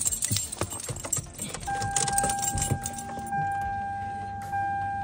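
Car keys jangling in the ignition as the key is handled, with clicks and rattles in the first half. A steady electronic tone comes on a little under two seconds in and holds.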